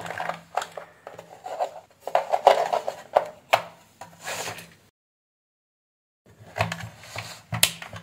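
Handling noise of a weighing-scale keypad being put together: a rubber key membrane and circuit board set onto the plastic scale base, rustling with light clicks and knocks over a faint low hum. The sound drops out completely for over a second in the middle.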